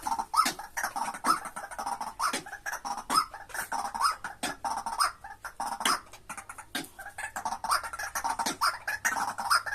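White-breasted waterhen calling: short rising notes repeated over and over, mixed with sharp clicks.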